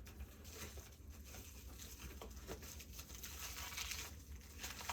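Packaging rustling with a few light clicks as large camcorder batteries are handled and unwrapped.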